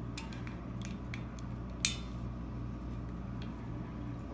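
Light metal clicks and clinks of wrenches on a brass flare fitting as it is tightened, with one sharper click a little under two seconds in, over a steady low hum.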